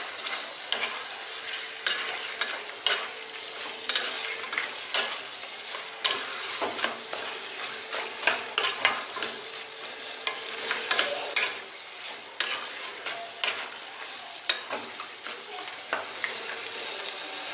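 Wooden spatula stirring and scraping chicken pieces through spice paste in a hot kadai, with frequent irregular knocks and scrapes over a steady sizzle as the chicken fries in oil and ghee.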